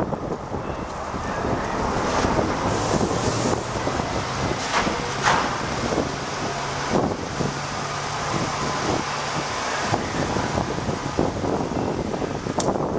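Bus Éireann Expressway coach engine running as the coach drives off, a low steady engine tone with tyre noise on wet ground. Wind buffets the microphone throughout.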